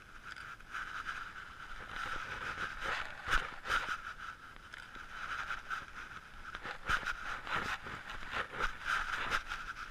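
Handling noise from a body-worn action camera: irregular scraping, rustling and knocks as it rubs against hands, clothing and a camera strap, over a steady hiss.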